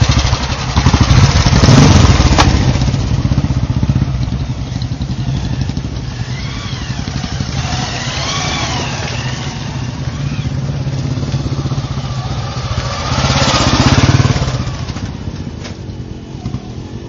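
Royal Enfield Bullet single-cylinder motorcycle engines thumping at low revs as the bikes climb a rough dirt trail under load. The engines swell louder about two seconds in and again about three-quarters of the way through.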